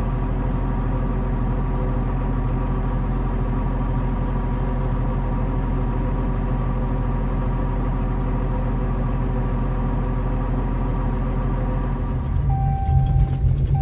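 Vehicle engine idling steadily, heard from inside the cab. Near the end it gives way to a louder, uneven rumble with an on-and-off beeping tone.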